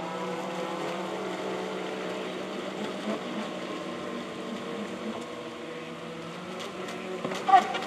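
Several Club 500 model racing boats running flat out together, their small electric motors and propellers making a steady whine of many overlapping tones as they race away. A short, sharp, louder sound cuts in near the end.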